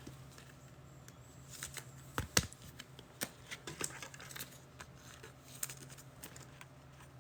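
Faint, scattered light clicks and taps of trading cards being handled, the sharpest pair about two seconds in, over a low steady hum.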